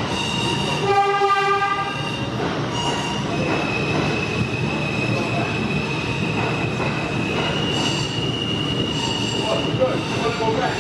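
New York City subway train running with its steel wheels squealing on the rails in a steady high tone, and a short horn note about a second in.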